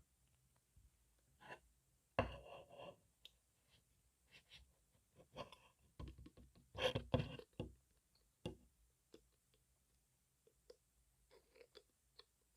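Close-miked ASMR trigger sounds recorded on an earphone microphone: irregular soft clicks, taps and short scratchy rustles, with two louder flurries, one about two seconds in and one around six to seven seconds in.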